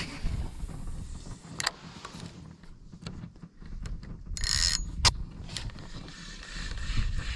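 Spinning reel being worked: a couple of sharp clicks, the loudest about five seconds in, then the handle cranked so the gears tick quickly in a retrieve near the end.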